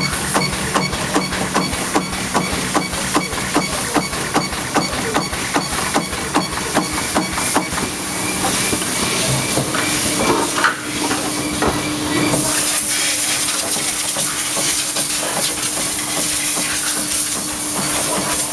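A radiator circumferential seam welding machine running, with rapid regular clicking, about four a second, over a steady hum. About twelve seconds in, a steady hiss takes over.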